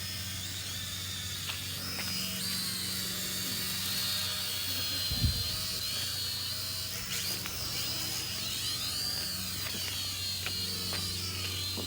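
Small quadcopter drone's propellers buzzing in flight, a high whine that rises and falls in pitch as it moves. A single thump about five seconds in.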